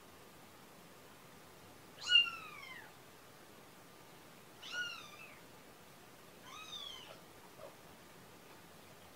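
Young kitten mewing three times, a few seconds apart: short high-pitched cries that each fall in pitch, the first the loudest.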